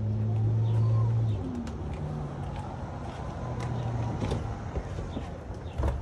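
Tesla Model X falcon-wing rear door powering shut under its electric motors: a steady low hum with a faint whine above it, ending near the end with a thud as the door closes.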